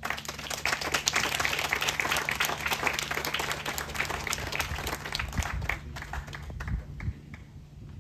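Audience applauding. It starts suddenly, holds full for about six seconds, then thins to scattered claps near the end.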